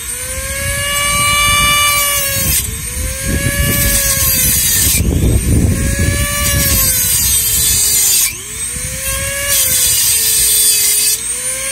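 Corded handheld rotary tool cutting off the governor arm of a 5.5 hp small engine. Its motor whine rises and sags in pitch every two to three seconds as the tool is pressed into the metal, with spells of hissing grinding noise while it cuts.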